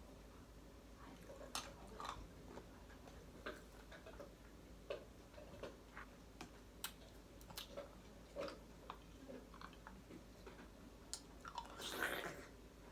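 A person chewing and crunching food close to the microphone: quiet, irregular crunches and mouth clicks, with a louder crunch about twelve seconds in.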